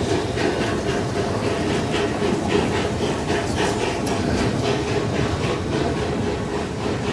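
Narrow-gauge steam train pulling its coaches slowly past, with a steady rhythmic clatter of about three beats a second.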